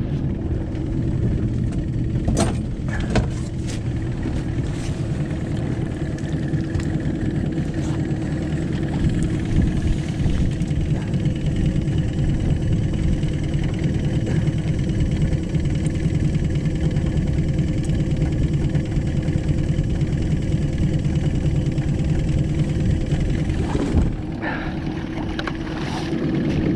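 Boat motor running steadily with a low rumble, with a few sharp knocks about two to three seconds in and again near the end.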